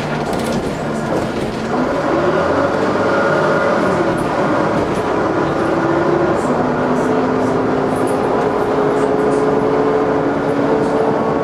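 Dennis Trident double-decker bus under way, heard from the lower deck: engine and drivetrain running with a whine that climbs in pitch as the bus gathers speed, drops back at a gear change about six and a half seconds in, then climbs again.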